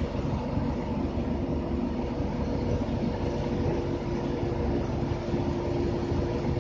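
Cabin noise of an RTS city bus under way: engine and road noise make a steady drone, with a constant whine running through it.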